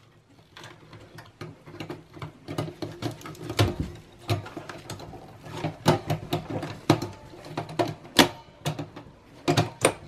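Irregular clicks, taps and rubbing as gloved hands push a SATA power cable onto a solid state drive and handle the plastic and metal drive cage of a Dell OptiPlex 7010 small-form-factor computer.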